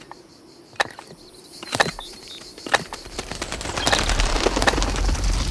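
Four sharp knocks about a second apart, then from about three seconds in a deep earthquake rumble builds under a dense, rattling crackle of ground breaking up.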